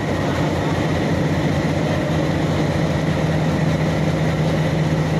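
Broad gauge diesel locomotive's engine running steadily at low throttle: a deep, even hum with a steady low tone.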